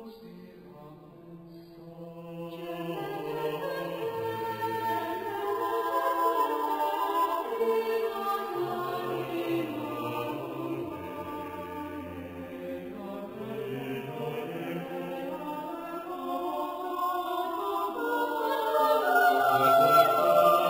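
A choir singing a slow hymn in long, held chords over a low bass line, starting soft and swelling louder toward the end.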